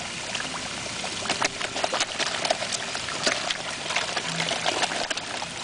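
A crowd of koi thrashing at the pond surface in a feeding frenzy: a dense run of small, quick splashes and smacks as the fish break the water, growing busier after about a second.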